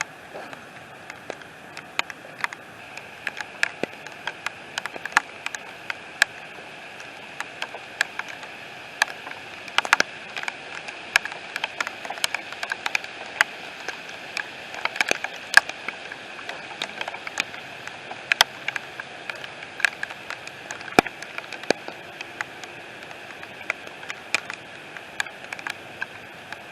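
Heavy rain: a steady hiss with many irregular sharp taps of drops striking close by.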